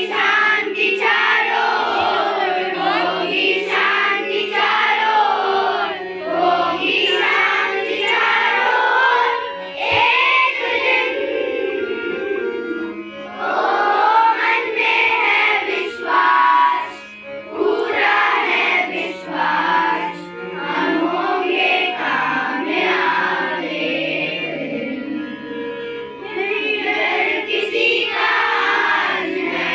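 A group of young children singing a song together over instrumental accompaniment with steady held low notes.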